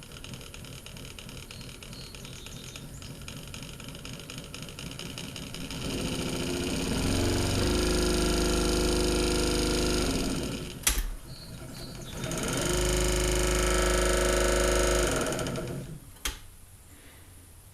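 Minn Kota Duramax 55 lb thrust trolling motor's electric motor running with a bad bearing, not running well. It runs quietly at first, then speeds up to a louder, steady running for about four seconds. After a click it runs at that level again for about three seconds, and stops with another click.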